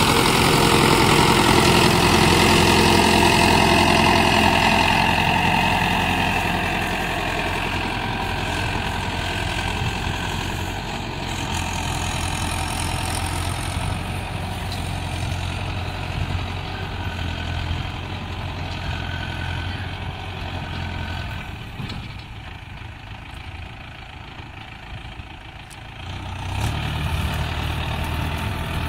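Mahindra Yuvo 575 DI XP Plus tractor's four-cylinder diesel engine running steadily as it pulls a trolley away across a field. It is loud at first, fades as it moves off, and grows louder again near the end.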